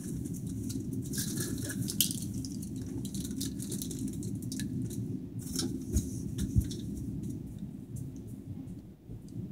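Rustling and scattered light clicks from someone moving right by the phone's microphone, with two dull thumps about six seconds in, over a steady low rumble.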